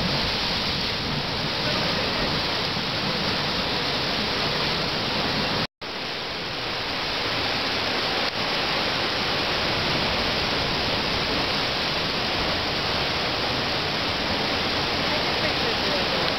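Steady roar of sea water surging and churning in a rock-walled sinkhole open to the ocean. The sound cuts out for an instant about six seconds in.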